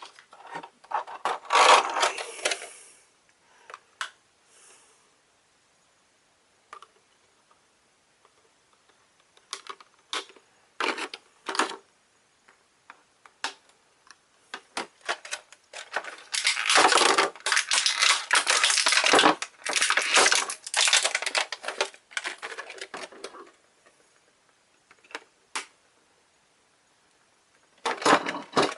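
Toy packaging being handled and opened: scattered clicks and taps, then several seconds of dense crackling and crinkling a little past halfway through.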